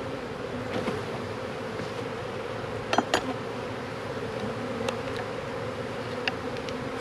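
Honeybees buzzing in a steady hum, with two sharp clicks about three seconds in and a few fainter ticks later.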